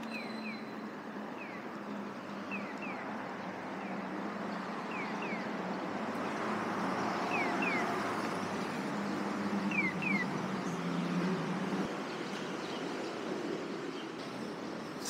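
Street traffic noise that swells as a vehicle passes through the middle, with a steady low hum. A bird repeats short falling chirps in pairs every second or two.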